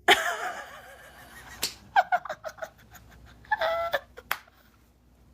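A person laughing in short bursts, broken by a couple of sharp slaps or clicks.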